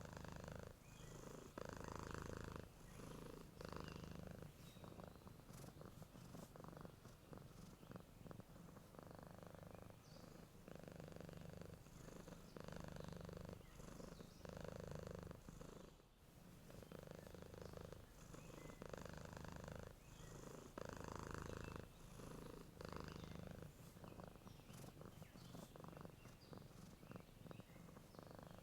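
Domestic cat purring while asleep: a quiet, steady purr that swells and eases with each breath, about every two seconds.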